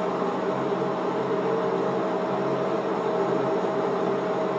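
Steady appliance hum with a few constant low tones, from a running motorized household appliance.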